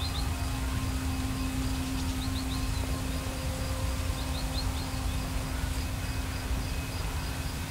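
Summer countryside ambience: wind rumbling on the microphone and a steady insect trill, with a bird giving quick groups of three short rising chirps three times. A steady low hum runs underneath.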